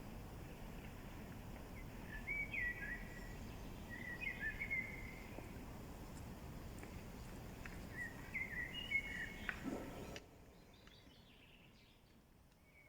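A songbird singing three short phrases of quick chirps and slurred notes, over a steady outdoor background noise that drops off abruptly about ten seconds in.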